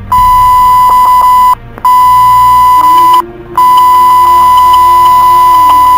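Fire dispatch radio alert tone: a loud, steady high-pitched beep sounded three times, the first two about a second and a half each and the last about two and a half seconds.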